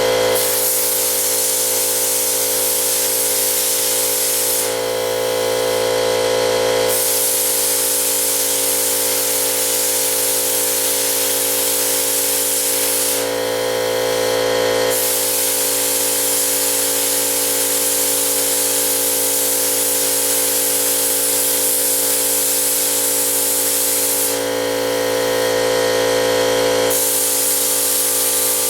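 Lotos 5000D plasma cutter cutting 1/8-inch diamond plate steel: the arc gives a steady loud hiss over the machine's hum. The hiss stops three times for about two seconds each, near 5, 13 and 24 seconds in, as the cut pauses and restarts along the curve.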